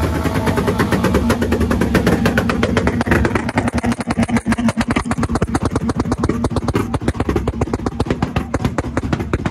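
A loud vehicle engine close by, its exhaust giving a rapid pulsing note of about ten pulses a second; from about halfway through the pulses turn more uneven.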